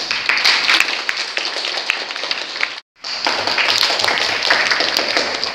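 A small group of people applauding by hand, a dense run of claps. The sound cuts out completely for a moment just under three seconds in, then the applause carries on.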